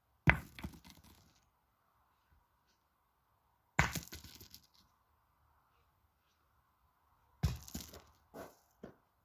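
Steel pétanque boules being shot: three sharp clacks about three and a half seconds apart, each followed by a quick run of smaller knocks and rattles that die away.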